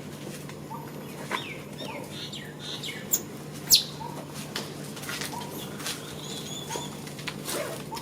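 Baby monkey squeaking and chirping in short, high calls, some gliding in pitch, with two sharp clicks a little past the middle.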